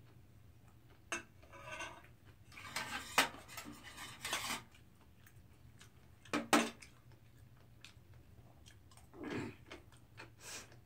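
Metal spoon scraping and clinking against a brass bowl as rice is stirred and scooped, in irregular short bursts with a few sharp clinks.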